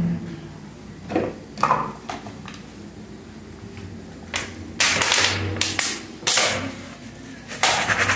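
Washing up a small metal sieve in a stainless-steel kitchen sink: scattered knocks and clanks of metal against the sink, with short bursts of rinsing and scrubbing with a sponge, the longest about halfway through and near the end.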